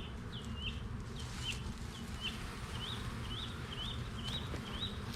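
A bird calling over and over, a short chirp repeated slightly under two times a second, over a steady low hum of honeybees buzzing.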